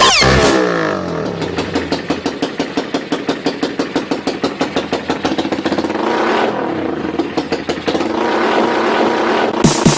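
Motorcycle engine, a Suzuki Raider 150, revving and running with a quick, even pulsing, laid into a dance-music remix as a break.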